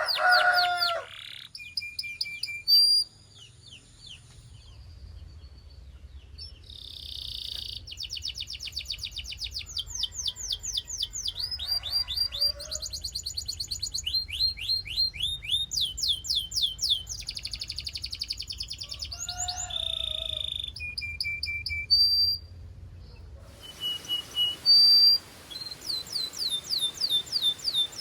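Canary singing a long song of rapid trills: fast runs of the same swept note repeated many times a second, switching to a new trill every second or two, with short breaks between phrases.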